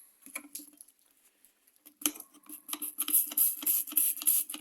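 A small brush scrubbing metal engine parts wet with engine cleaner, in quick repeated scratchy strokes that start about two seconds in after a few light clicks.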